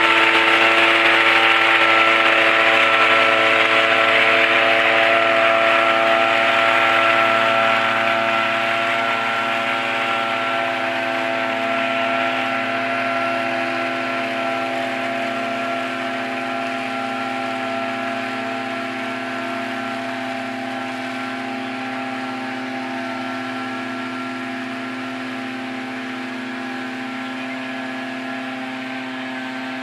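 Engine of a two-man tea-plucking harvester running at a steady speed, a constant droning tone that fades slowly over the first half.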